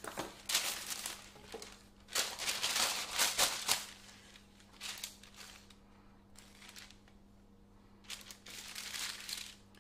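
Greaseproof paper rustling and crinkling in several irregular bursts as a sheet is handled and smoothed onto a metal baking tray. The bursts are loudest in the first four seconds, with a further burst near the end.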